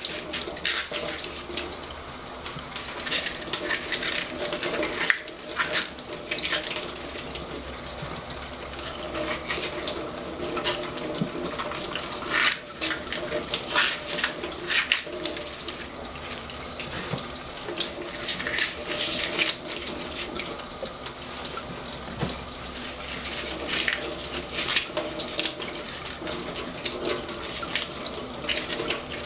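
Water running from a kitchen tap into a sink, with irregular splashes and knocks as things are handled under it, over a steady low hum.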